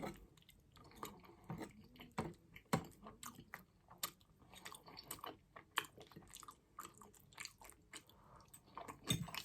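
Close-miked chewing of a burger: soft, irregular wet mouth clicks and squelches, with a few sharper bites.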